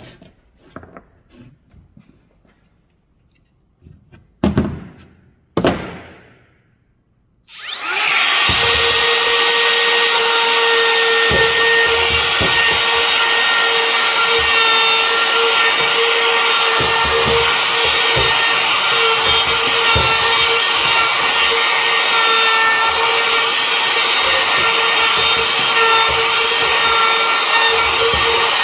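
A few light knocks and two short louder knocks, then a power tool starts about seven seconds in and runs steadily on wood, with a steady hum over the cutting noise.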